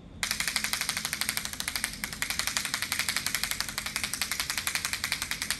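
Rapid, even clicking from a handheld sound device used as a sound trigger while tapping a horse, starting just after the beginning and running steadily.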